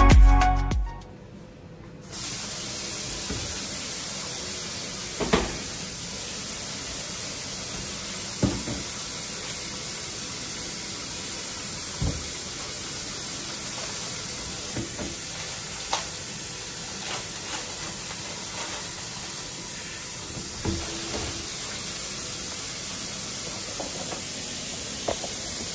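Kitchen tap running steadily into a bucket in the sink, a constant rushing hiss, with a light knock every few seconds.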